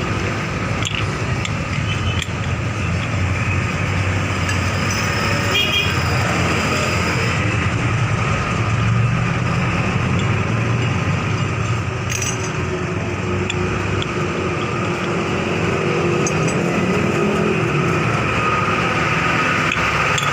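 Steady motor-vehicle noise with a few light clicks.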